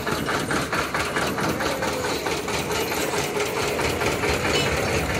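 An engine running steadily with a rapid, even knocking beat, against the noise of a busy street.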